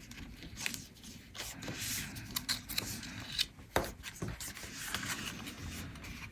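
Paper and cardstock handled at a tabletop: rustling and rubbing, with scattered light taps and clicks.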